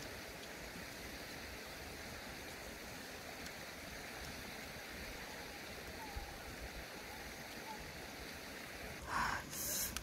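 Steady faint outdoor background noise while a person eats by hand, then a few short, louder noises near the end as hands work through stir-fried cabbage and egg on a plate.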